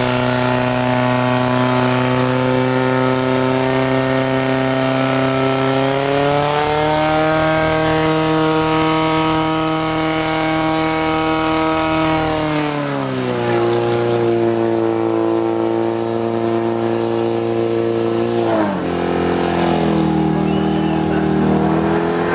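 Portable fire pump's petrol engine running hard at high revs as it draws water from the tank. The pitch rises about six seconds in, falls back about thirteen seconds in, and drops lower again near the end as the engine is throttled down.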